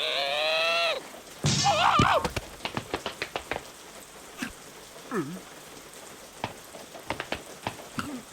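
Cartoon sound effects: a squealing, wavering character vocalisation, a second wobbling squeak with a low buzz, then a run of light, scattered ticking clicks like pattering.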